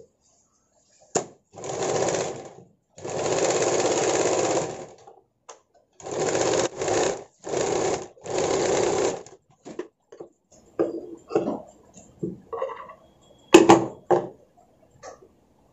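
Domestic sewing machine stitching in five short runs of one to two seconds each, stopping and starting, through the first nine seconds. After that come scattered small handling sounds and one sharp click a couple of seconds before the end.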